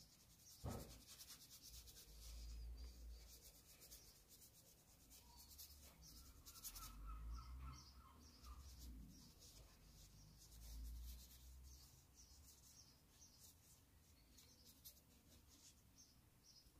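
Near silence with faint, scratchy rubbing of a paintbrush on sketchbook paper.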